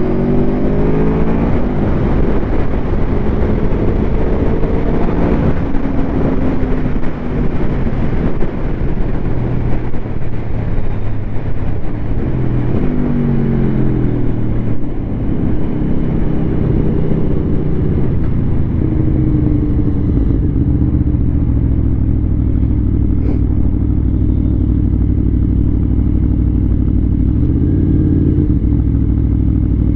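Aprilia Tuono V4 motorcycle's V4 engine through an SC Project slip-on exhaust, revving up and dropping back repeatedly through the gears. About two-thirds of the way in it settles into a steady, lower running note.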